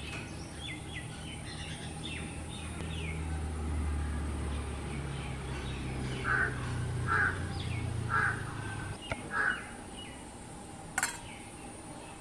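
A crow cawing four times, about six to nine and a half seconds in, over faint small-bird chirps and a low hum that fades out near the ninth second. A single sharp click comes near the end.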